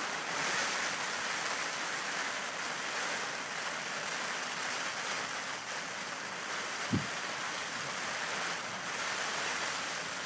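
Steady rushing of wind and choppy lake water, with one short low thump about seven seconds in.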